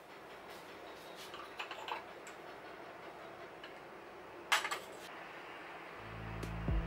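Faint clicks and light taps of a small spoon and lid on a ceramic sugar jar as sugar is spooned out, the sharpest click about four and a half seconds in.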